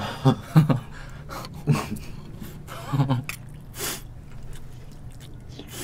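People eating soup with spoons: several short breathy noises and a few brief hummed voice sounds between mouthfuls.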